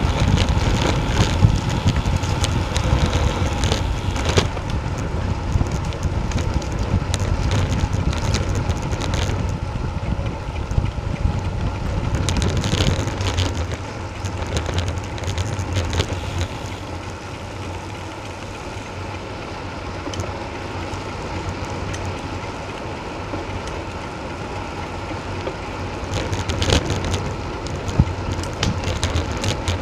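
Wind rushing over the microphone of a bike-mounted action camera at riding speed, with road noise from the tyres on the tarmac lane. The rush drops off from about halfway through as the bike slows, then picks up again near the end with a few louder gusts.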